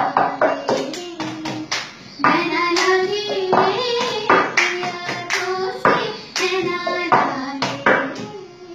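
A voice singing a melody over a rhythm of cup taps and hand claps, the cup-song style of accompaniment. The singing and the strokes die down near the end.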